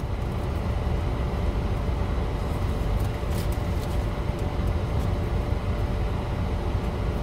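Steady low rumble and hum inside a car's cabin, the engine and air conditioning running, with a few faint clicks about three seconds in.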